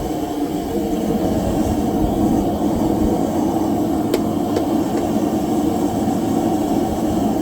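A forge running with a steady rushing noise, with three light taps a little past the middle.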